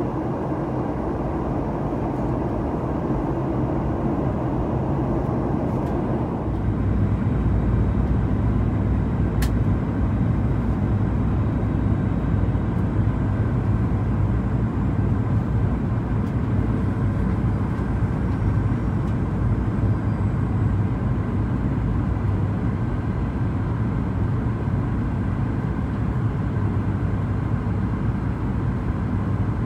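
Cabin noise of a Boeing 737-900ER on descent, heard from a window seat beside the wing: a steady rumble of its CFM56-7B engines and the airflow. About six seconds in it turns deeper and somewhat louder, with a brief click a few seconds later.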